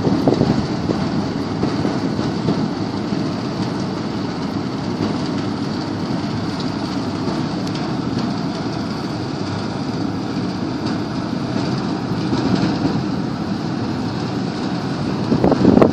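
Steady engine drone of a small boat underway, running evenly without change.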